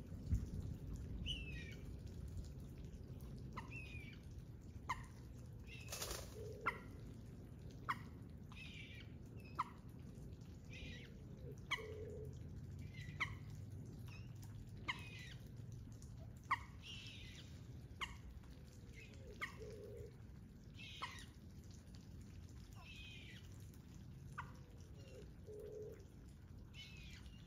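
Birds calling: short falling chirps and sharp ticks repeated about once a second, with a lower call every few seconds, over a steady low rumble.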